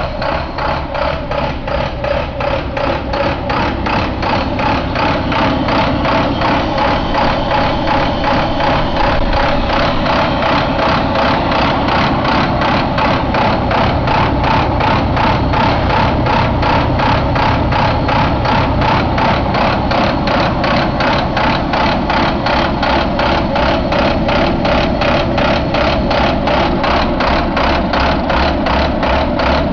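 International MaxxForce DT inline-six diesel engine idling steadily, with an even, rhythmic pulsing clatter.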